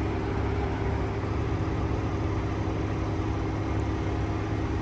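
A vehicle engine running steadily, a low rumble with a faint steady hum over it.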